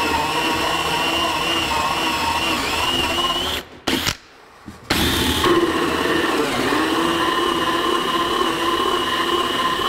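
Cordless drill spinning a 1¼-inch hole saw into a wooden board, cutting the hole partway through from one side. The motor whine wavers under load, stops for about a second just before four seconds in, then starts again and runs steadily.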